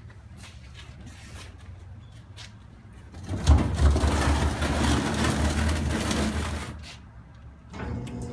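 Low machinery hum with scattered clicks. About three and a half seconds in, a loud rumbling noise starts suddenly, runs for about three seconds and fades out. Near the end a steadier hum with a steady tone comes in.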